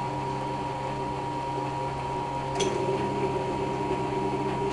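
Washing machine running with a steady motor hum. A single sharp click about two and a half seconds in, after which the running gets a little louder.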